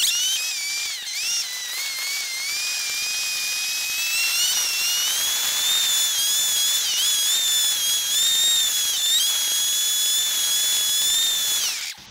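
Honda Grom MSX125's 125 cc single-cylinder engine running at high revs, heard as a high whine whose pitch dips briefly and recovers several times with the throttle. Near the end the pitch falls away and the sound drops off sharply as the bike slows.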